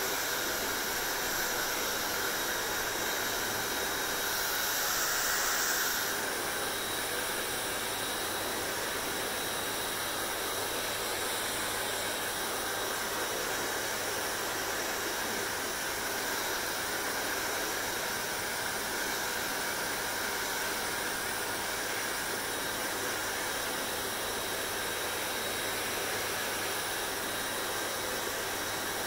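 Hair dryer running steadily, a continuous airy blowing hiss with a faint motor and fan whine. It swells briefly about five seconds in.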